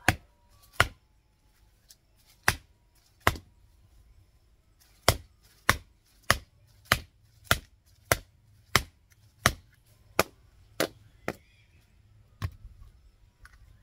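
A series of about sixteen sharp knocks, each one a single hard strike: a few spaced out at first, then a steady run of about one and a half a second, then a few more near the end.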